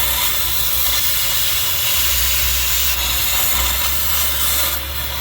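Cutting torch running with a steady loud hiss and low rumble while a seized bolt head is heated and sliced off.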